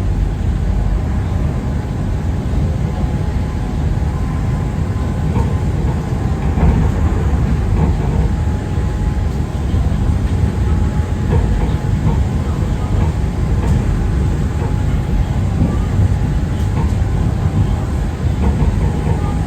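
Alstom Innovia Monorail 300 train of the Pink Line, heard from inside the car while running along its guideway: a steady low rumble of the rubber-tyred train, with a faint steady whine and a few light clicks.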